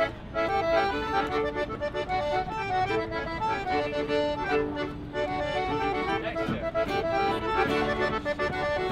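Live acoustic folk band playing a tune, the accordion leading, with a fiddle and a strummed acoustic guitar.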